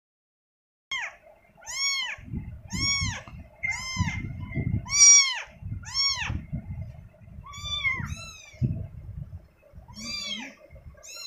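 Kitten mewing repeatedly: about ten high-pitched calls roughly a second apart, each rising and falling in pitch, starting about a second in, over a low rumbling noise.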